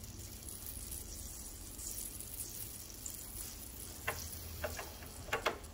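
Vintage Märklin toy steam engine heating on its burner: a steady faint sizzle from the boiler, which is leaking at the front. A few light clicks about four to five and a half seconds in as a hand handles the engine.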